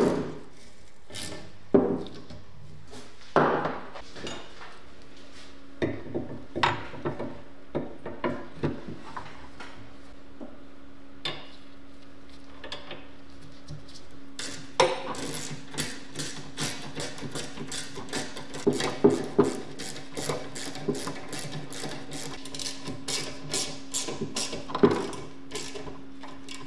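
Metal parts knocking and clicking as a handlebar is seated in a steel stem clamp, then a ratchet handle clicking in a fast, even run while the clamp bolts are tightened with a hex bit.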